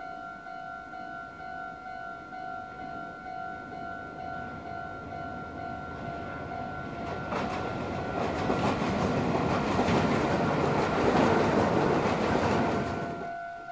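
Meitetsu electric commuter train crossing a steel truss railway bridge: a rumble that builds from about halfway, with wheels clacking over rail joints as it passes close, then cuts off abruptly near the end. A pulsing two-tone level-crossing warning bell rings steadily behind it.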